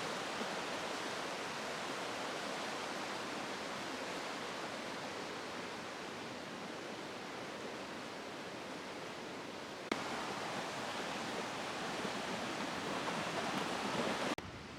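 River water rushing steadily, the even wash of a river running high. A faint click about ten seconds in, after which the sound is a little louder.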